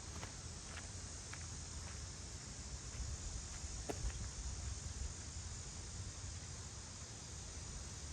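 Steady high-pitched chirring of insects, with a low rumble underneath and a few faint clicks.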